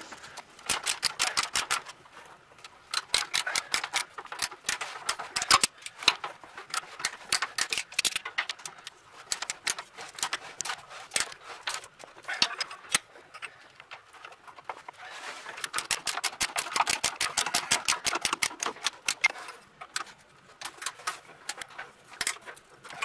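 A hand ratchet with a socket on an extension, clicking rapidly as it turns a bolt. The clicks come in several runs of a few seconds each, with short pauses between them.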